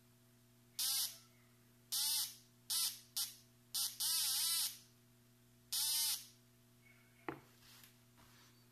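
Homemade MkII pinpointer metal detector sounding its alert tone in seven short bursts, each a warbling high tone that dips and rises in pitch, as a coin is passed near its search coil: the detector is picking up the metal. A single sharp click follows about seven seconds in.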